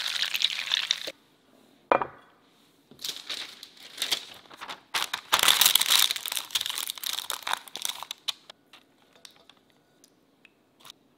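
Butter sizzling and foaming in a stainless steel pan for about a second, cut off abruptly. Then parchment paper crinkles as it is pressed and folded into a baking dish, loudest in the middle, followed by a few faint ticks near the end.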